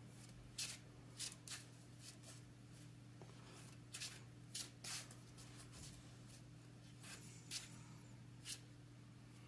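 Game cards being handled on a table: about ten short, soft card slides and taps at uneven intervals, over a faint steady low hum.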